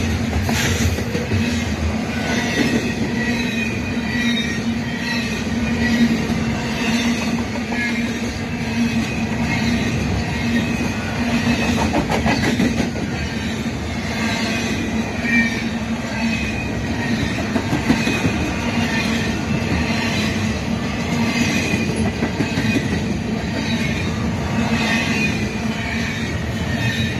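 Double-stack intermodal container well cars rolling steadily past on the rails: a continuous wheel-on-rail rumble with high, wavering wheel squeal coming and going and occasional clanks.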